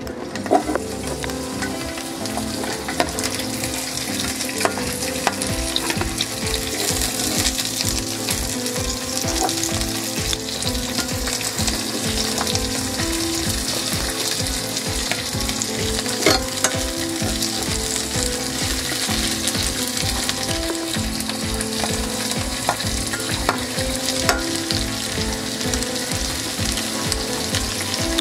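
Chopped cabbage, onion and scotch bonnet pepper sizzling steadily in hot vegetable oil in a nonstick frying pan. A few sharp clicks come from a utensil knocking on the pan as the vegetables are stirred.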